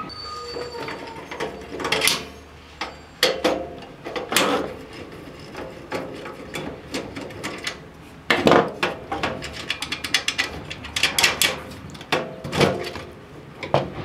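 Screwdriver and sheet-steel server parts being handled during disassembly: scattered clicks and metal knocks, then a dense run of rattling clicks in the middle and a few louder clanks near the end as the fan tray comes loose.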